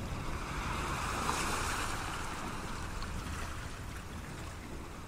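Sea surf washing with wind rumbling on the microphone; the wash of the surf swells about a second in.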